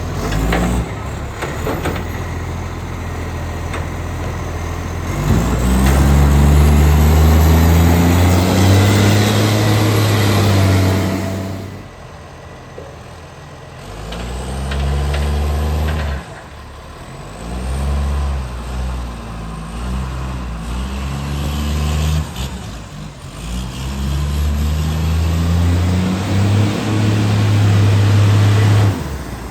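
ACCO side-loader garbage truck's diesel engine, which has an exhaust leak, revving up and down in long bursts while picking up bins, held high for several seconds at a time before dropping back.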